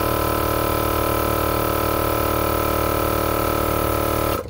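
Maxtrac 160 L/min 12 V portable air compressor running steadily as it inflates a van tyre, with a constant hum. It cuts off suddenly near the end, switched off with the tyre almost up to 50 psi.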